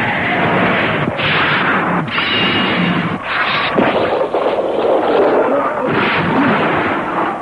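Storm sound effect: heavy rain with thunder crashing several times in a row, each crash a loud sudden surge.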